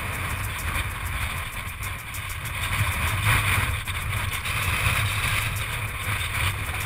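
Mountain bike riding down a rocky trail, heard as a steady rumble of wind on the camera microphone and the rattle of tyres and bike over loose stones.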